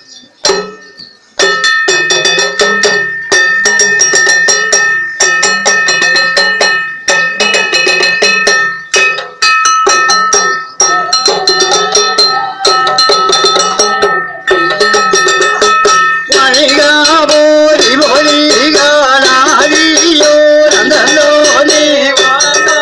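Rhythmic metallic percussion, struck rapidly and ringing on, starting about a second and a half in. About two thirds of the way through, a wavering melodic line joins in over it.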